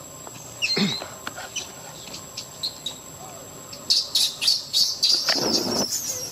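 Baby macaque screaming in distress: a short cry just under a second in, then from about four seconds in a run of rapid, high-pitched squealing calls.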